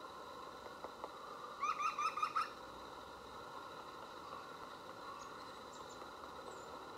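Green woodpecker (Picus viridis) giving a short laughing call, a quick run of about six notes about one and a half seconds in.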